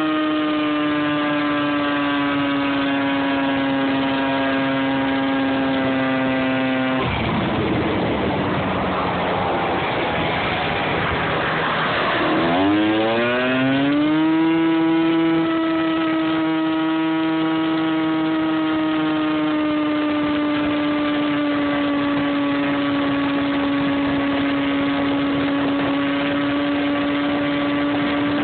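Motor scooter's small engine running at a steady cruising pitch, sagging slowly. About 7 s in the engine note gives way to rushing wind and road noise as the throttle is let off; about 12 s in it revs back up in a quick rising whine and settles into a steady cruise again.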